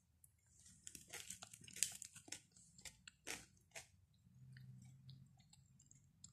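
Quiet, crunchy eating sounds: a charred flatbread being torn by hand and chewed, with a quick run of sharp crackles and clicks between about one and four seconds in.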